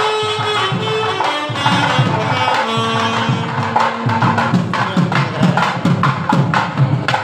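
Alto saxophone playing a melody with long held notes over hand-drum accompaniment. About four seconds in the saxophone stops and rapid drum strokes on the barrel drum carry on alone.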